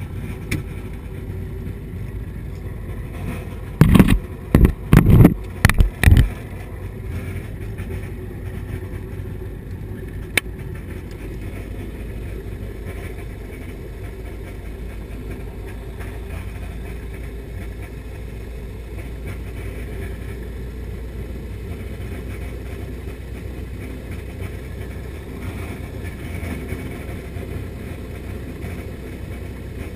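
Turner T-40 light aircraft's piston engine and propeller running steadily, heard from inside the cockpit. About four seconds in comes a quick run of about six loud knocks or bumps, and a single sharp click a few seconds later.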